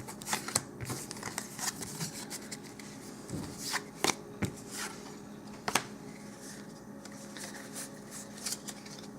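Magic: The Gathering trading cards being handled and flipped through, with scattered short clicks and rustles of card stock, over a faint steady low hum.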